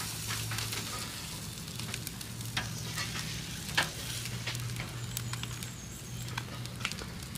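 Food frying and sizzling in a pan, with a few light clicks of a utensil against it.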